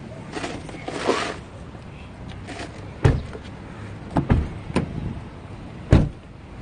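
Knocks and thumps around a car as its occupants get out: a car door being shut, with rustling and handling knocks, the loudest thump near the end.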